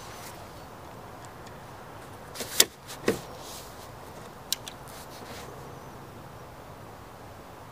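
Chiappa Little Badger break-open .22 rifle being handled: a few sharp metallic clicks and clacks from its action and hammer, the loudest about two and a half and three seconds in and another thin click about four and a half seconds in, over a steady background hiss.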